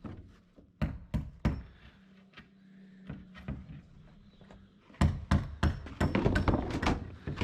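A series of sharp knocks and thuds: a few about a second in, then a quick, louder run of them from about five seconds on.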